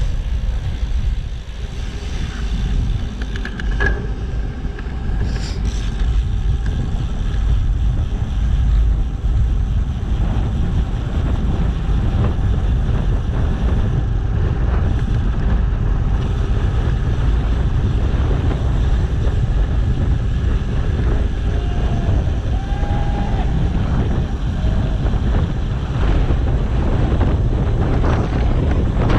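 Wind buffeting a bicycle rider's action-camera microphone while riding along, a steady loud low rumble.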